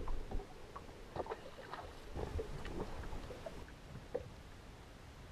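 Light, irregular knocks and clicks from gear and movement in an aluminium fishing boat, over a low rumble.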